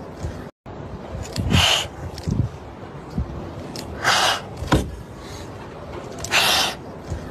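Kittens hissing: three short, sharp hisses about a second and a half, four seconds and six and a half seconds in, with a few low pops between them.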